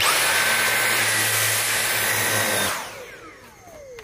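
Dyson cordless stick vacuum running with its mini motorised tool: a steady rush of airflow with a high motor whine. It is switched off a little under three seconds in, and the whine falls in pitch as the motor spins down.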